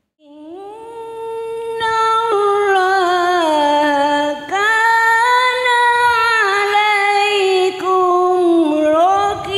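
A woman chanting a Quran verse in melodic tilawah style into a microphone, in maqam Bayyati, pitched high as a voice-training exercise. Long held notes glide up and down with ornaments, with a few short breaks.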